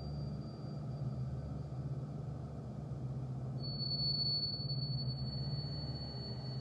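Low, steady suspense drone from the film's sound design, with a thin high-pitched whine over it that fades out within the first second and comes back about three and a half seconds in.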